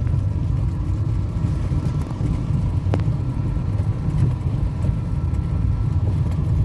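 Steady low rumble of a car in motion, heard from inside the cabin, with a faint steady hum and a single click about three seconds in.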